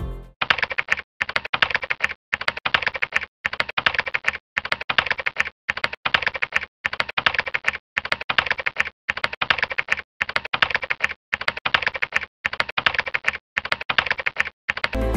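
Computer keyboard typing sound effect: runs of rapid keystrokes, each about a second long, with a brief pause between runs, sounding as on-screen text is typed out.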